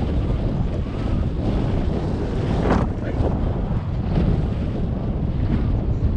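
Wind buffeting the microphone of a bicycle-mounted action camera while riding, a steady low rushing with a brief louder gust a little under halfway through.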